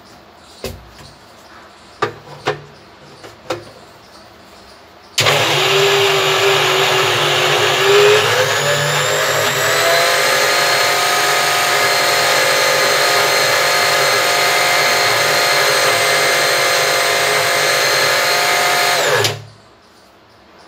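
Electric mixer grinder running for about fourteen seconds, grinding soaked moong dal coarsely; its whine rises in pitch a few seconds after starting, then it is switched off and winds down. Before it starts, a few clicks and knocks as the jar is fitted onto the base.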